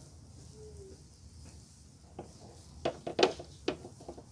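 Light plastic clicks and taps as a glossy black ABS grille trim piece is handled and wiped with a coating applicator over a plastic drain pan, a quick cluster of them about three seconds in.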